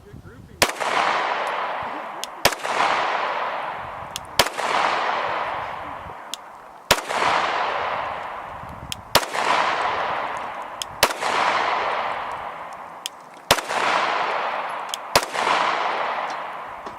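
Glock 17 9mm pistol firing eight single shots, one about every two seconds, each followed by a long fading echo.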